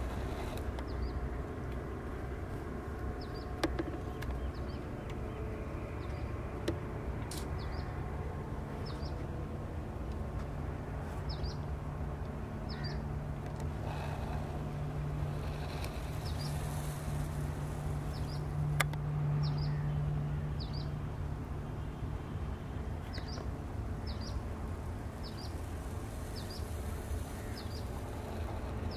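A few sharp cracks from a P15 .22 air rifle firing, the loudest about two-thirds of the way in. A small bird chirps over and over, and a low steady hum swells in the middle and fades.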